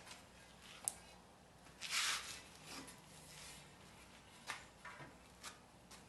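Scrap aluminum pieces being handled and set down: a sharp click about a second in, a scraping rustle around two seconds, and a few light knocks and rustles later on.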